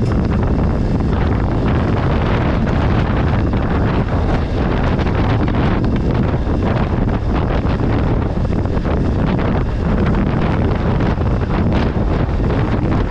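Wind buffeting the microphone of a camera mounted on an adventure motorcycle riding a dirt track at speed, over a steady low rumble of engine and tyres on the rough surface, with scattered small knocks from bumps.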